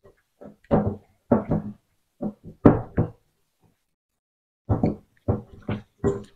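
Hands squelching and turning raw chicken drumsticks in a wet egg-and-spice marinade in a glass bowl: a string of short, irregular wet slaps and knocks, with a pause in the middle.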